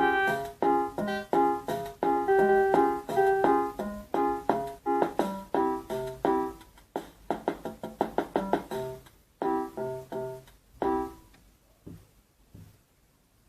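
Casio MT-18 electronic keyboard playing a quick tune in chords, its notes thinning out and stopping about eleven seconds in, followed by a few faint taps.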